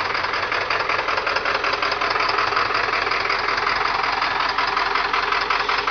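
Ford 7.3L PowerStroke (International T444E) V8 turbo diesel idling steadily shortly after a cold start, with a fast, even clatter. Bad injectors have it missing on at least one cylinder, running on about six or seven.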